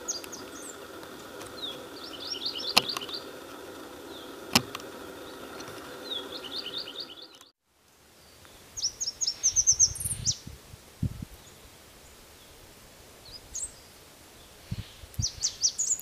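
Red warbler singing short, rapid trilled phrases of high notes, four times. Two sharp clicks come about three and five seconds in, and low thumps follow later.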